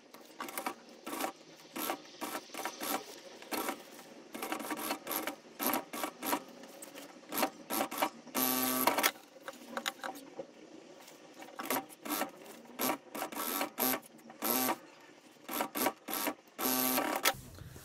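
Industrial single-needle lockstitch sewing machine stitching in short bursts, starting and stopping again and again as the fabric is guided, with longer runs about eight and a half seconds in and near the end.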